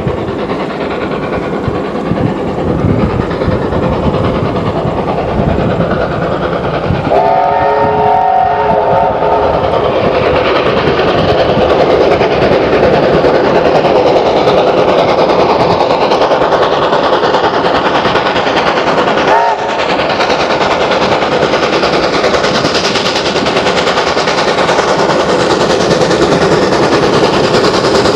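New Zealand Railways Ja class 4-8-2 steam locomotive No. 1275 approaching at speed and working hard, its exhaust loud and continuous. Its chime whistle sounds once for about two seconds, about a quarter of the way in.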